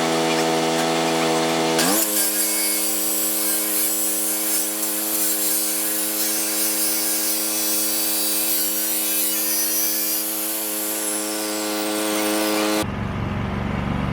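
Electric chop saw motor running steadily and cutting metal, with a harsh high hiss over the motor's hum; its pitch jumps up about two seconds in. Near the end the sound cuts off abruptly to a low rumble.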